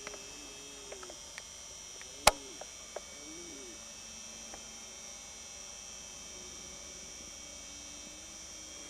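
A steady high-pitched insect drone from an evening field, with faint low calls in the distance. A single sharp click a little over two seconds in, plus a few smaller ticks.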